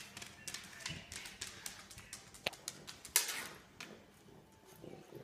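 A pug's claws clicking on a tile floor as it walks, as irregular light taps, with one louder knock about three seconds in.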